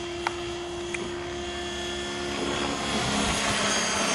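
Swift 16 electric RC helicopter in flight: the steady whine of its brushless motor and gearing over the swish of its 550 mm main blades, growing louder about three seconds in.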